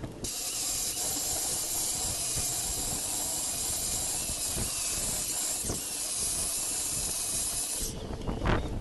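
Aerosol spray-paint can spraying in one long continuous hiss lasting about eight seconds and cutting off suddenly, as the routed letters of the wooden sign are filled with paint. A few knocks follow near the end.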